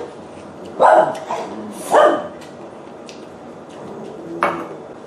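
A pet dog barking a few short times, one bark falling in pitch; the dog is scared of the thunder outside.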